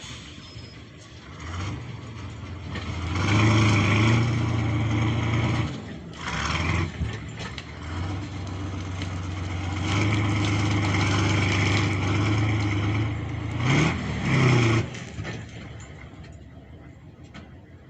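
Kirovets K-701 tractor's diesel engine running, revving up under load twice, about three seconds in and again about ten seconds in, and dropping back to a lower idle between and near the end.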